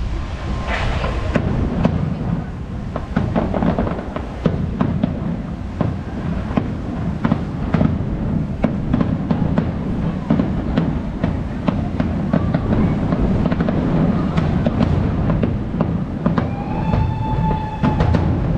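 Fireworks display: a rapid, irregular string of bangs and crackles over a continuous low rumble, with a brief held whistling tone near the end.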